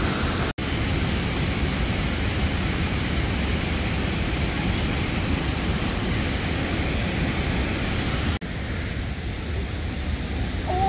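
Steady rush of water spilling over a dam spillway, an even noise with no rhythm. It cuts out for an instant twice, about half a second in and about eight seconds in, and is a little softer after the second break.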